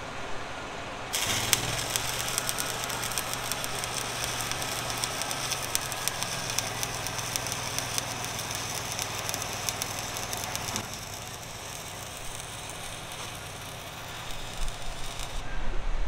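Stick welding arc crackling and sizzling steadily as a weld pass is run over an earlier bead on a steel dock plate bumper. The arc strikes about a second in and breaks about a second before the end, with a low steady hum under its first part.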